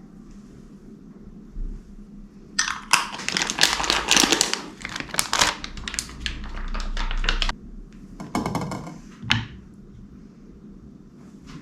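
Hands handling food and wrapping while a cheese platter is put together: about five seconds of dense crinkling and clicking, then a short rattling burst and a single click near the end.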